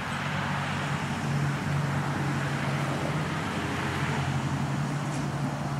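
Steady low hum and hiss of a running car.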